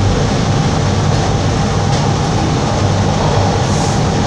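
Toronto subway train running through a tunnel, heard from inside the car: a loud, steady rumble of wheels and motors with a low hum.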